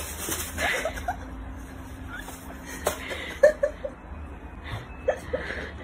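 A cat giving a few short mews, with a single knock about three seconds in.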